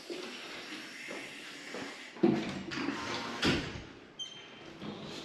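A glass entrance door swinging shut with a thump about two seconds in, and a second knock about a second later. A short high tone sounds near the end.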